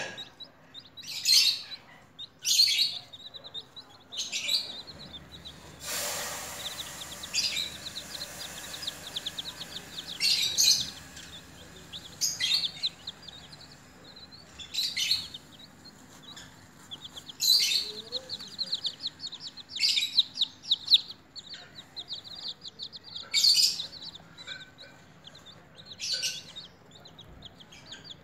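Baby chicks peeping: loud, high single calls every two to three seconds, with faster runs of quieter chirps between them. A rustling hiss rises about six seconds in and lasts several seconds.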